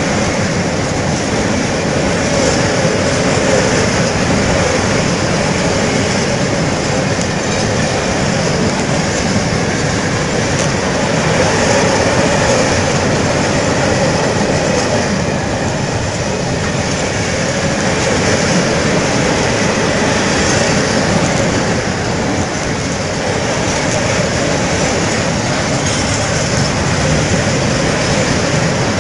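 Freight train of Eaos open wagons passing at speed: a steady, unbroken noise of the wagons' wheels running over the rails.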